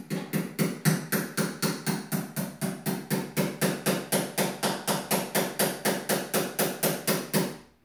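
Small hammer tapping a 3 mm pin into a wildebeest skeleton's atlas bone, a tight fit: a long run of quick, even strikes, about four or five a second, stopping shortly before the end.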